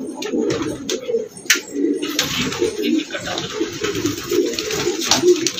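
Many domestic pigeons cooing at once in a loft, their low coos overlapping.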